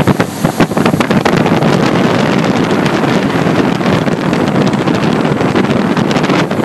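Wind buffeting the microphone aboard a motorboat running at speed, over a steady rush of water and engine noise, with many short crackling gusts.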